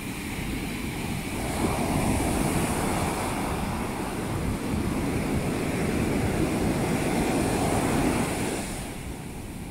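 Ocean surf breaking and washing up a sandy beach: a steady rush of water that swells about a second and a half in and eases off near the end.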